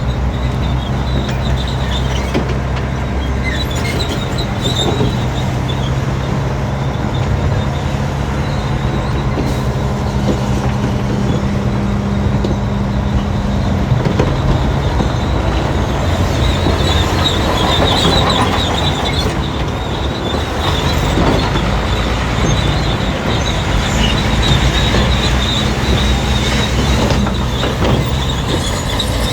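Crawler bulldozer's diesel engine running steadily under load, with a high squeal from its steel tracks.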